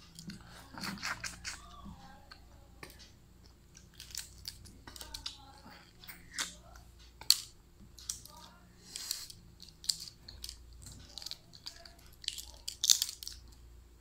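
Balut (boiled fertilized duck egg) shell being cracked and picked away with the fingers: irregular small crackles and clicks of breaking eggshell, with a couple of louder cracks, one around the middle and one near the end.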